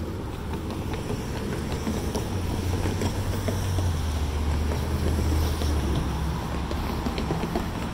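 City street traffic: the low engine rumble of a passing vehicle swells about two seconds in and fades near the end, over steady road noise.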